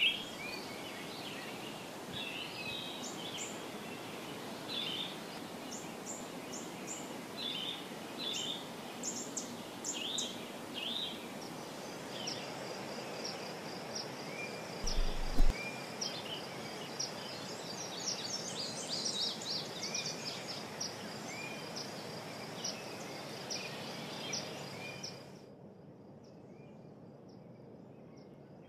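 Outdoor nature ambience: birds chirping in short, repeated calls over a steady hiss, with a high, steady trill joining about halfway. A brief low bump near the middle is the loudest moment, and a few seconds before the end the sound drops to a fainter ambience with a few distant chirps.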